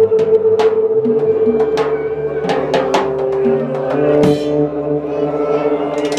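Drum kit played with sticks: irregular cymbal and drum strokes over held low notes from another instrument that step from one pitch to another.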